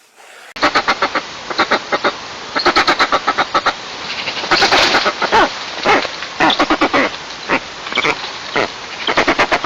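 Pair of eagles calling to each other at the nest: bursts of rapid, harsh repeated notes, several a second, with a few longer downward-sliding calls in the middle.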